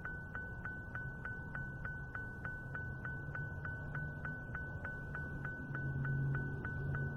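Electronic beeping: a steady high tone pulsing about four to five times a second, over a low hum that grows slightly louder near the end.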